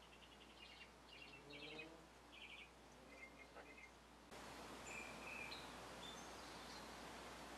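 Near silence: faint room hiss with a few faint, short high chirps in the first half. The hiss steps up suddenly about four seconds in.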